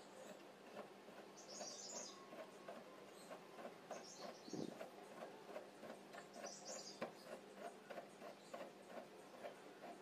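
Faint, rapid ticking, about three ticks a second, from a car scissor jack being wound up to tilt a drum sander's wooden table, with a few short high chirps now and then.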